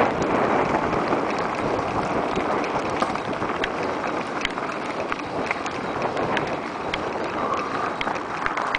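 Mountain bike rolling fast over a dirt and gravel singletrack: steady tyre and trail noise with wind buffeting the microphone, and many short sharp clicks and rattles from stones and the bike.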